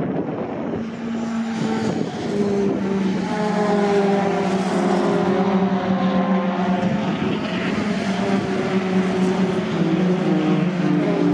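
Racing pickup trucks passing in a pack, several engines running hard at once and growing louder about two seconds in.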